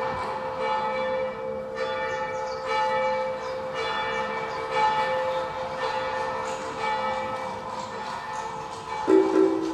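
Bells ringing: a run of overlapping struck notes, each ringing on, over a steady hum. Near the end a louder, lower pair of tones comes in.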